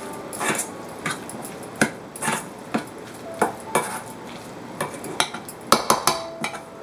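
A metal utensil stirring a thick mashed-potato filling in a stainless steel mixing bowl, clinking and scraping against the bowl at irregular intervals. Some strikes ring briefly, and a quick run of louder clinks comes near the end.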